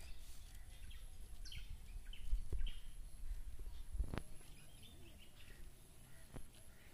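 Rural outdoor ambience: a low rumble with scattered short bird chirps, and a sharp click about four seconds in.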